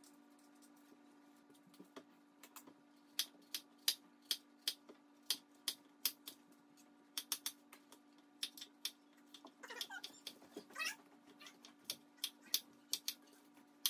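Kitchen knife cutting apples into pieces on a white cutting board: a long, uneven run of sharp taps as the blade meets the board, starting about two seconds in. About ten seconds in, a brief wavering cry rises and falls over the taps, and a steady low hum runs underneath.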